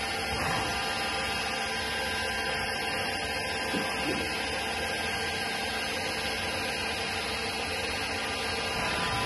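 Steady machine hum with several constant tones from a powered-up Doosan Puma 2500 XLY CNC lathe standing idle, its spindle not turning.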